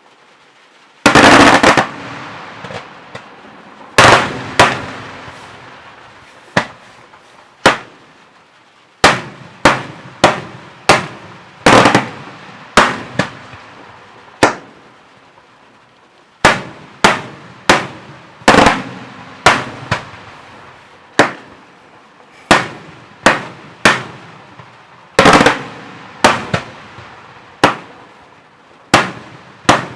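Daytime fireworks: a run of loud aerial bangs, roughly one a second at uneven spacing with some in quick pairs. Each bang dies away in a rolling echo, and a dense, crackling burst comes about a second in.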